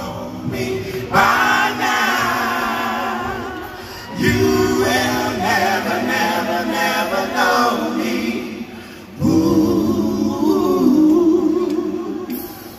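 Male soul vocal group singing live in close harmony, largely unaccompanied, holding long chords in three phrases that start about one, four and nine seconds in.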